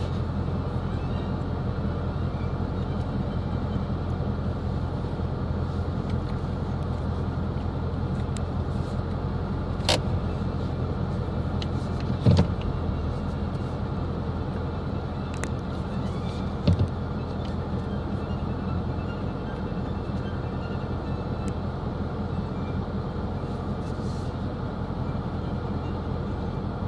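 Steady low rumble of road and engine noise inside a moving car's cabin, with three short knocks about ten, twelve and seventeen seconds in.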